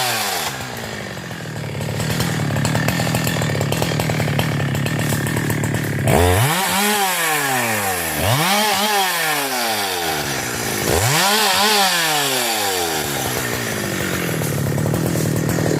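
372 two-stroke chainsaw running at full throttle at a steady pitch, then revving up and sagging back three times about two seconds apart before holding steady again.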